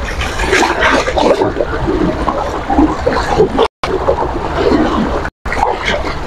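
Choppy sea waves splashing and lapping close by, with strong wind rumbling on the microphone. The sound cuts out twice for a split second in the second half.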